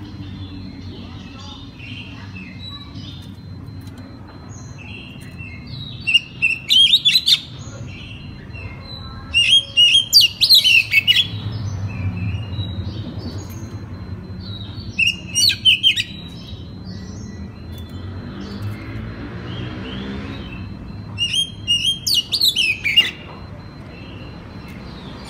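Oriental magpie-robin (kacer) singing in four short bursts of loud, high chirping phrases, about a second or two each, with pauses between, over a low steady background rumble.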